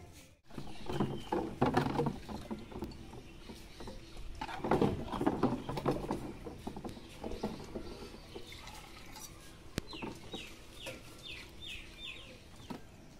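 Chickens clucking, loudest twice in the first half. Near the end a bird gives a quick run of about eight short falling notes.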